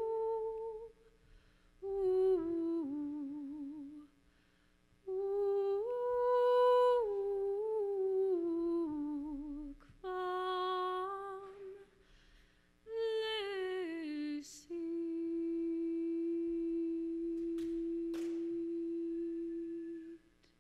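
A woman humming wordless melodic phrases with vibrato, in short phrases separated by pauses, ending on one long held note that stops shortly before the end.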